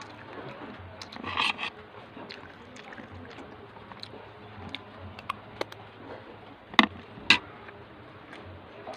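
Eating sounds at a meal: scattered clicks and clinks of cutlery on a plate along with chewing, with two sharper clicks about seven seconds in, over a faint steady hum.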